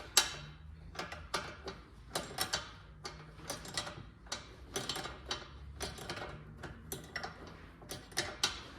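Ratchet wrench clicking as a suspension nut is worked loose: a run of sharp, irregular ticks, several a second, with a few louder metal knocks.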